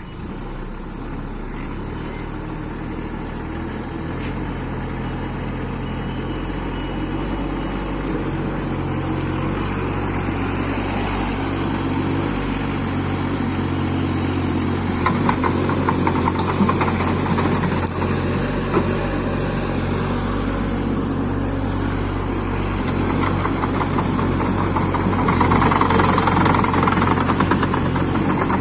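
JCB mini excavator's diesel engine running steadily and growing louder, with spells of clattering about halfway through and again near the end.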